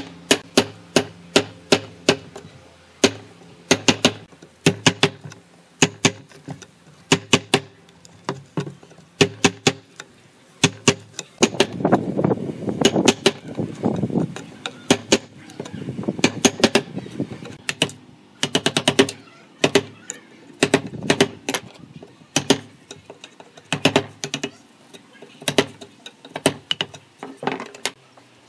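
Chisel being driven into a wooden rail by blows from a hardwood block used as a mallet, chopping out a notch: runs of sharp wooden knocks, several a second, with short pauses between runs and a busier stretch of quicker blows near the middle.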